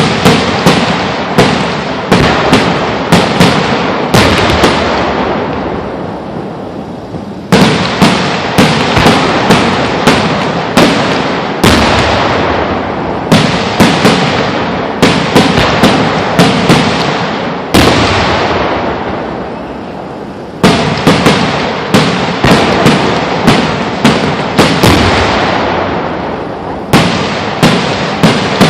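Fireworks display heard close up: volleys of sharp bangs, several a second, each volley starting with a sudden loud burst and its rumble fading away before the next, with fresh volleys about every three to six seconds.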